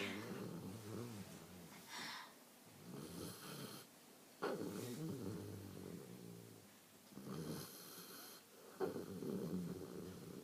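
Snoring: slow, rhythmic snores with a rough, low rasp on each breath, about one every two seconds, some with a hissy whistle.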